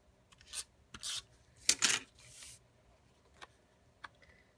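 Tape runner drawn across the back of a paper panel in several short strokes, the loudest just under two seconds in, with light paper handling and a few faint clicks.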